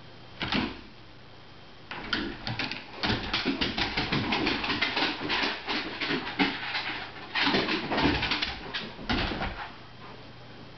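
Two large dogs play-wrestling on a wooden floor: a short scuffle about half a second in, then from about two seconds a long dense run of scrabbling claws, thumps and dog noises that dies down near the end.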